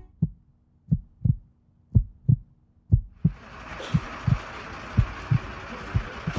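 Heartbeat sound effect: low thumps in lub-dub pairs about once a second. A steady background noise fades in beneath them about three seconds in.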